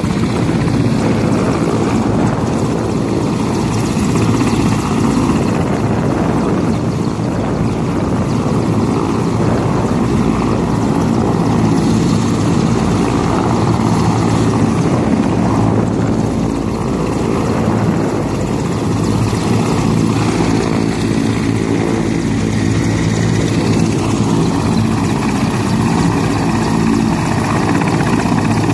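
Mil Mi-171 helicopter's twin turboshaft engines and main rotor running loud and steady as it comes in over the landing zone and settles onto the ground, with a steady stack of low rotor tones under a dense roar.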